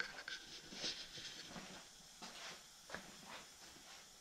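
Mostly quiet room with faint, scattered short taps and rustles, a few a second at most, from someone moving about with a handheld camera.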